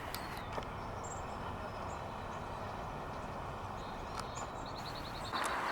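Quiet outdoor background noise, steady, with a few faint high chirps; the noise grows louder near the end.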